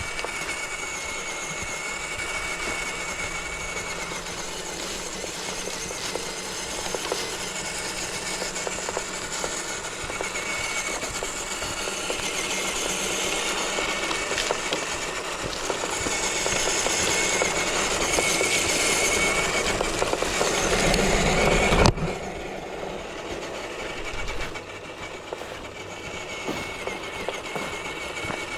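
Radio-controlled scale crawler truck's electric motor and gears whining steadily as it drives. The whine grows louder for most of the stretch, then drops off suddenly about three-quarters of the way through and carries on quieter.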